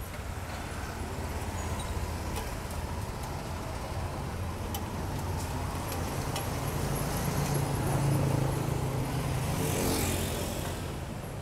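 Street traffic: a motorbike engine passing close, building to a peak about eight to ten seconds in over a steady traffic hum. A few light metal clicks from tongs on the cast-iron griddle.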